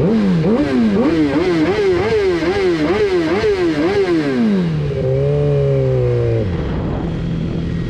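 Sport motorcycle engine revved hard in quick blips, its pitch climbing and falling about twice a second, then held at a steady higher note for a second or so before dropping back to idle.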